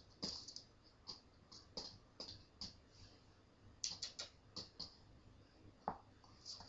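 Scattered light clicks and ticks at irregular intervals, with several sharper ones close together about four seconds in.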